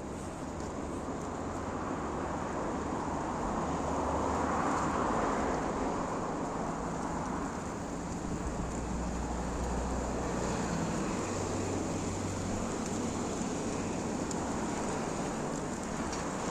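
Road traffic noise: a vehicle passes, swelling and fading about four to six seconds in, over a steady low rumble.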